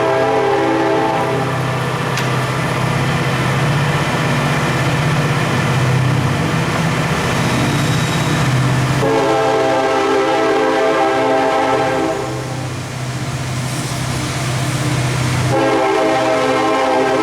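Clausing 17-inch engine lathe running under power, its spindle and gearing giving a steady whine. The sound switches several times between a clear whine and a rougher, noisier run, with a short drop in loudness about two-thirds of the way through.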